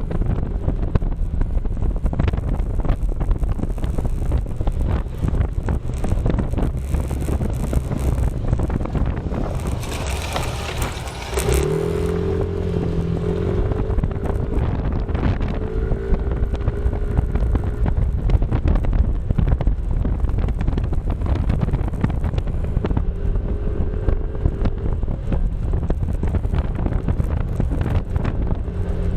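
Wind buffeting the microphone over the rumble of a moving vehicle. About halfway through, a wavering engine note comes up for several seconds, and it returns briefly near the end.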